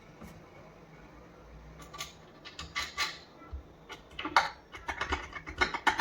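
Irregular small metal clicks and clinks from a gas strut and its fittings being handled and fitted to a wooden door. They start about two seconds in and come thick and fast in the last two seconds.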